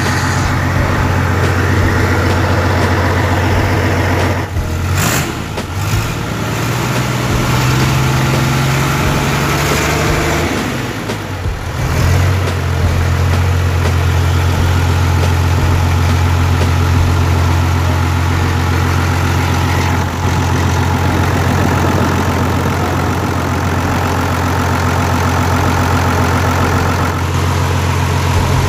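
Kirloskar HA 694 six-cylinder air-cooled four-stroke diesel engine running unmounted, with its exhaust coming straight out of an open manifold pipe. It idles steadily, picks up speed for a few seconds about a third of the way in, then drops back to a steady idle.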